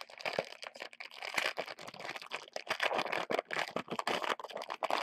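Trading-card pack wrapper being torn open and crinkled by hand: a dense, continuous crackle of sharp crinkles.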